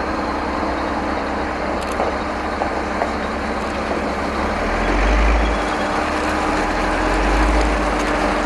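Heavy military vehicle's diesel engine running with a steady whine, its low rumble swelling twice, about five and about seven and a half seconds in.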